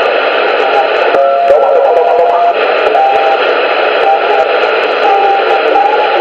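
CB radio receiver tuned to channel 19, giving a loud, steady hiss of static. Garbled, distorted voice fragments and short warbling tones break through, along with scattered crackling clicks.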